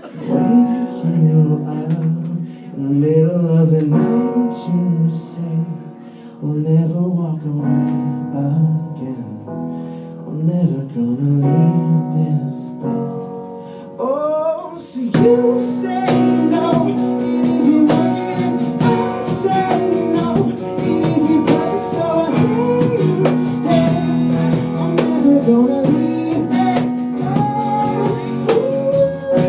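Live band playing an instrumental passage of a pop cover: keyboard chords with a wavering melody line over them, then about halfway through the fuller band comes in with strummed, percussive playing.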